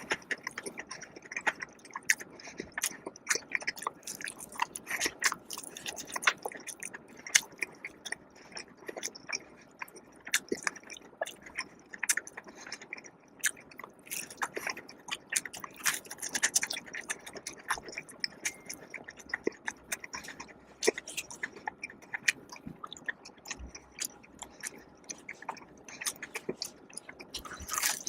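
Close-miked chewing and biting of crispy fried food: a dense, irregular run of crunchy clicks and crackles with wet mouth sounds in between.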